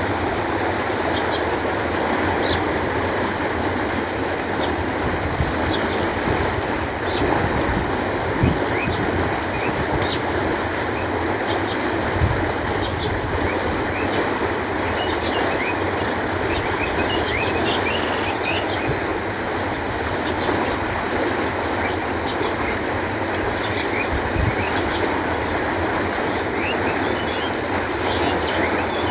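Canal water flowing in a steady, even rush, with short bird chirps scattered over it, more of them in the second half.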